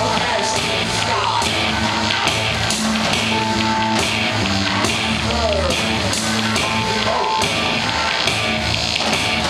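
Live band playing loud amplified music, with a steady drum beat and held instrument notes.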